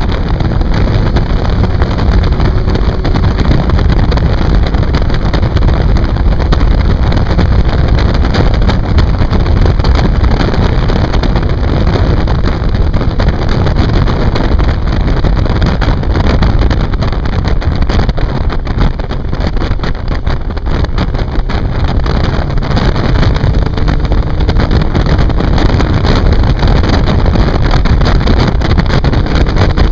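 Motorcycle riding at road speed: heavy wind rush on the microphone over the steady drone of the bike's engine.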